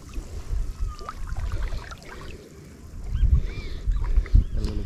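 Water sloshing and splashing around someone wading in a shallow, muddy stream, with uneven low thumps that are loudest a little past the middle and again near the end.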